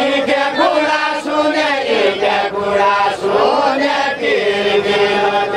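A group of voices singing a deuda song together without instruments, in long held, chant-like lines.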